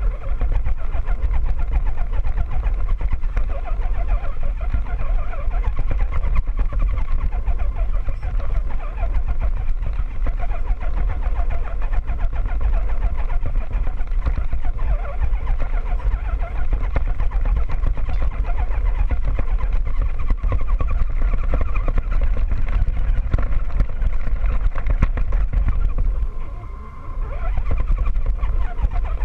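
Radio-controlled scale trail truck driving over rough dirt, heard from a camera mounted on the truck: its motor and gears whine steadily over a low rumble of the chassis jolting across the ground. The sound drops briefly near the end as the truck eases off, then picks up again.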